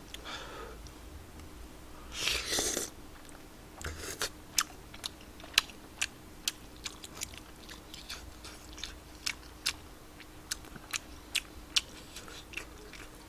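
Close-miked chewing of spicy tteokbokki rice cakes: wet mouth clicks and smacks, about twice a second, after one brief louder noise about two seconds in.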